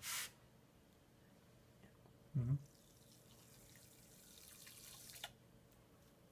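Powdered enzyme cleaner poured from a tub into a plastic bucket of water: a hiss of powder hitting the water that builds for about two seconds and stops abruptly with a small click. A brief low thump comes about halfway through, before the main pour.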